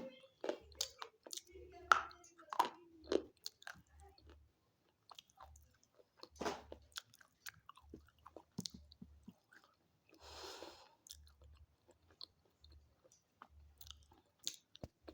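Close-miked crunching and chewing of brittle slate pencil sticks: irregular sharp snapping bites and gritty crunches, with a short hissing scrape about ten seconds in.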